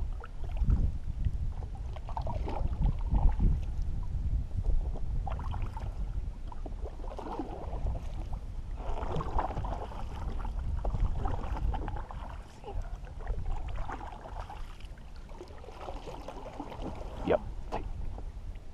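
Canoe being paddled through shallow marsh water: paddle strokes swishing and dripping, with water gurgling along the hull and light clicks of the paddle against the boat. A low wind rumble on the microphone runs underneath.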